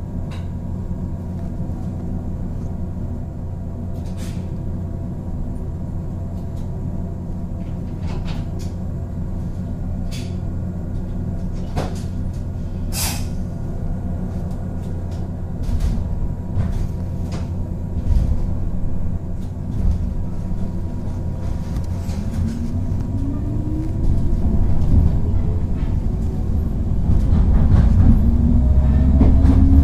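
JR West 103 series electric train, resistance-controlled, standing with a steady low electrical hum and scattered clicks, with one short hiss midway. About two-thirds through it starts off: a rising whine from its traction motors and gearing, growing louder.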